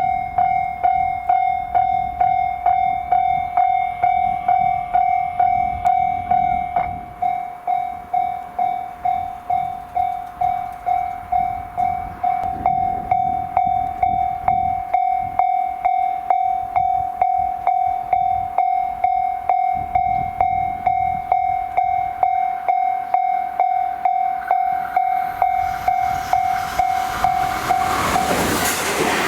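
Japanese level-crossing alarm ringing a single high ding about twice a second, steady throughout. Near the end a JR Hanwa Line train comes through the crossing at speed, its rushing noise swelling until the bell is no longer heard.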